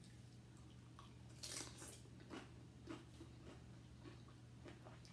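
Faint chewing and crunching of tortilla-chip nachos, a few soft crunches, the loudest about one and a half seconds in, over a low steady hum.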